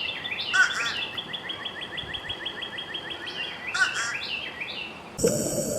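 Bird song: a songbird repeating short, fast chirps at about eight a second, with a couple of lower, richer phrases mixed in. Near the end it cuts abruptly to a steady mechanical hum.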